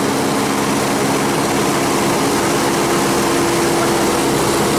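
Aircraft engine and propeller droning steadily, a constant pitched hum over rushing noise.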